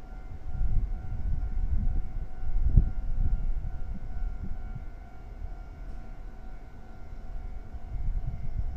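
Wind buffeting the microphone in gusts, strongest in the first half, over a faint steady multi-pitched hum from the rail yard.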